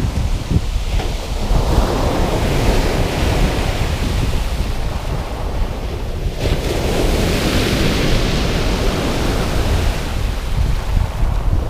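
Sea waves washing onto the shore, with wind buffeting the microphone in a constant low rumble. The surf swells twice, about two seconds in and again around seven seconds in.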